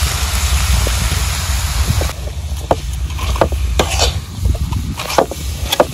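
Red crabs frying in a black iron wok, stirred with a metal spatula that scrapes and clicks against the pan in short strokes, over a hissing sizzle. The hiss is loudest for about the first two seconds; wind rumbles on the microphone throughout.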